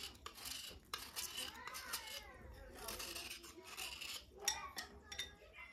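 A kitchen knife blade scraping a slate pencil bar in a series of short, rasping strokes, shaving powder off the bar.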